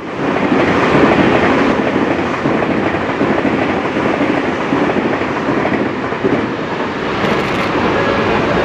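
Tobu Railway train running past a level crossing at close range, with steady wheel-and-rail noise that starts suddenly and holds throughout. Faint repeating tones come in near the end.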